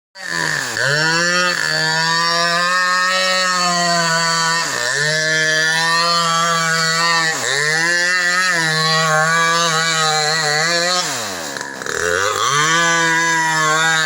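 Two-stroke chainsaw running at high revs, its pitch briefly sagging and recovering a few times, then dropping nearly to idle shortly before the end and revving back up.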